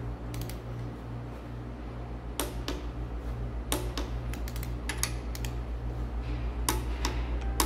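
Sharp, irregular metal clicks and clinks of a socket wrench working the hold-down bolts of a Cat 3406B diesel's rocker and Jake brake housings, snugging them down evenly, over a low hum that pulses about twice a second.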